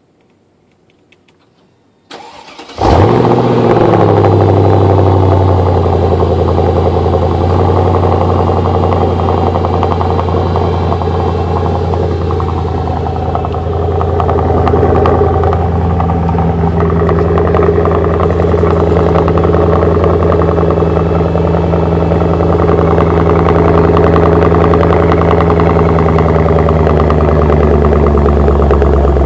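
Mercedes CL55 AMG's 5.4-litre V8 being cold started: a brief crank about two seconds in, then it catches with a loud flare and settles into a steady, loud fast idle that steps down slightly in pitch a few seconds later.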